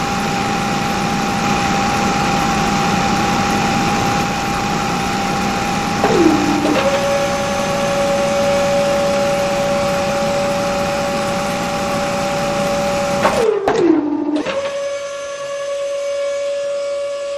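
Small electric motor of a model drilling rig, running with a steady whine over a rushing noise. About six seconds in, and again near the end, its pitch drops sharply and climbs back, settling a little lower each time. After the second dip the rushing noise behind it falls away.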